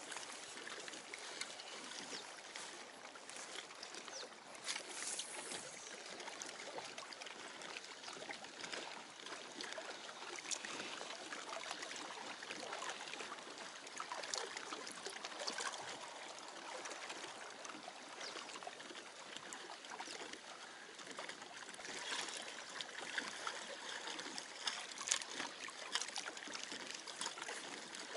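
Small lake waves lapping against a concrete shore wall: a steady wash of water with scattered small splashes.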